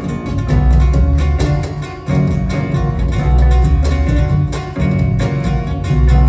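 Instrumental break in a Peruvian song: plucked guitars play over a steady, rhythmic bass line, with no singing.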